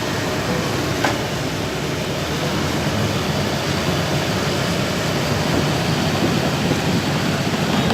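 Heavy diesel engines running steadily under load with a low, even hum, and one sharp knock about a second in.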